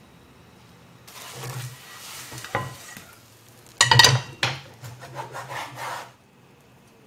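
Kitchen handling sounds: rubbing and scraping, then a loud clatter of cookware about four seconds in. A kitchen knife then cuts several times on a wooden chopping board.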